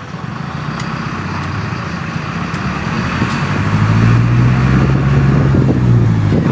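Engine and road noise of a moving vehicle, heard from on board. It gets steadily louder over the first few seconds and then holds, with a low engine hum.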